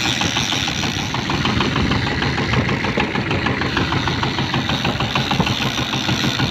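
Fishing boat's engine running steadily while trolling, with a fast, even knocking beat.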